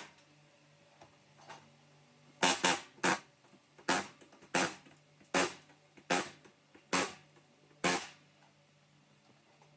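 Short, sharp bursts of a pneumatic air chisel (air hammer) knocking rivet heads off the school bus's sheet-metal body. There are about nine hits, roughly one a second, starting a couple of seconds in, over a faint steady hum.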